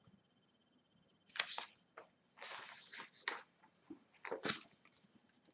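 Pages of a picture book rustling and scraping as they are handled and turned. A series of short paper scrapes starts about a second in and dies away near the end.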